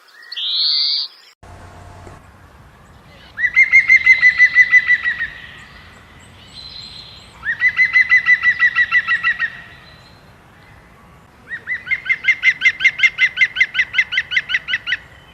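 A bird calling in three loud trills of rapidly repeated high notes, about six or seven notes a second, the last trill the longest. A short rising call comes just before them.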